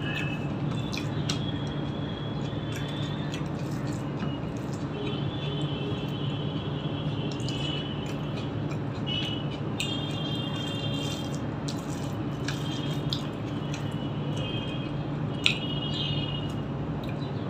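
Wet eating sounds: fingers squishing rice into curry on a steel plate and a mouth chewing, with many small clicks, over a steady low hum.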